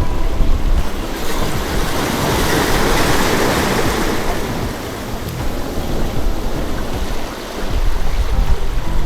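Sea waves washing on the shore, one wash swelling to a peak about three seconds in and then fading, with wind rumbling on the microphone.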